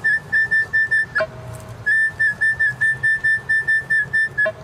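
Minelab E-TRAC metal detector screaming a high-pitched beep about four times a second as the coil sweeps over a buried coin, with a brief lower tone about a second in and again near the end. The target reads 12-46 on the display, a strong quarter-type signal; it turned out to be a silver quarter 2 or 3 inches down.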